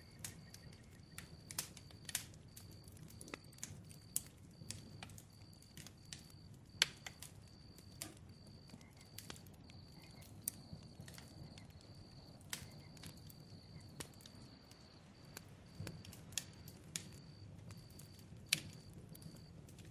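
Crackling bonfire: irregular sharp pops and snaps over a low steady rumble of the flames, with a high chirp repeating at even spacing throughout.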